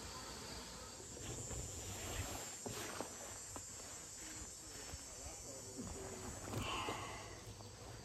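Faint outdoor ambience with a steady insect-like trill, and a few soft rustles of a bee suit's fabric as it is pulled on.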